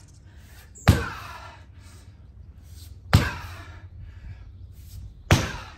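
Rubber-coated sledgehammer slammed down onto a rubber floor mat three times, about two seconds apart. Each strike is a sudden thud with a short fading tail.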